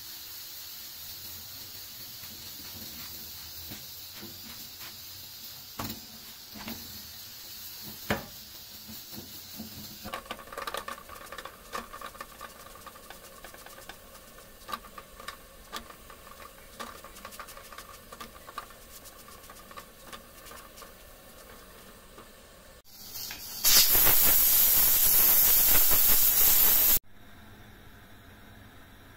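Roti cooking on a tawa over a gas burner: a steady hiss, with soft taps and rubbing as a cloth presses the bread down. Near the end a much louder hiss lasts about three seconds and cuts off suddenly.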